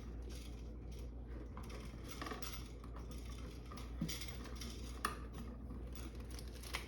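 Faint clicks and light taps of electrical wires and hand tools being handled, with a few sharper clicks about four and five seconds in, over a steady low hum.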